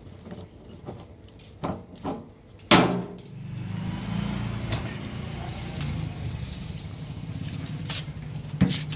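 A few clicks and a sharp knock about three seconds in, then the steady hum of a fuel dispenser's pump motor starting up and running.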